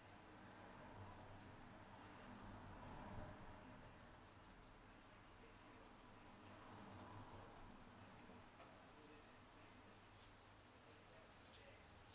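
A cricket chirping in a steady, high-pitched train of about five chirps a second, with a short break about three and a half seconds in before it resumes more evenly.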